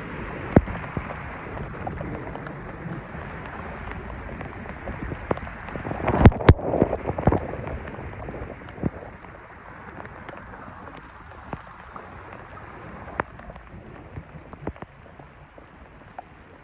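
Steady noise of rain and of water thrown up by an electric scooter's tyres on a flooded road, with scattered knocks and clicks. About six seconds in comes a louder cluster of splashing and knocks.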